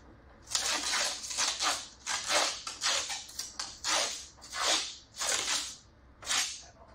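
Clear protective plastic film being pulled and peeled off a camper's aluminium skin, crinkling in a quick run of rustles about every half second.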